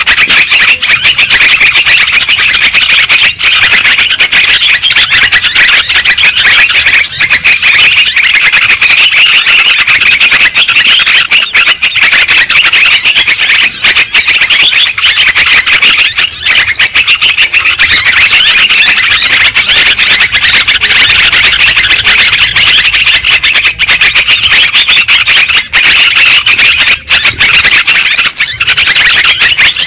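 Lure recording of many yellow-vented bulbuls (trucuk) chattering at once: a loud, dense, unbroken mass of overlapping calls, played to draw the birds in.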